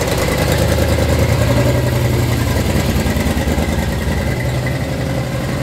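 Classic Ford Mustang fastback in Shelby GT350 livery rolling slowly past, its engine running steadily at low revs with a low-pitched exhaust note.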